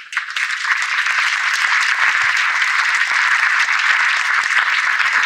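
A large audience applauding, a loud steady clapping that breaks out all at once.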